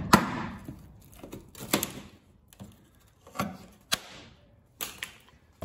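A flat screwdriver prying and chipping thick body filler (Bondo) off a rusted steel wheel arch: a handful of sharp, irregular cracks and scrapes as the filler splits and breaks away from the metal.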